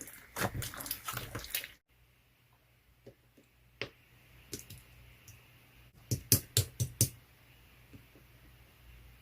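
Clear slime being handled, making sharp clicking and popping sounds. A dense run of clicks cuts off suddenly about two seconds in, a few scattered pops follow, and another quick cluster comes about six to seven seconds in.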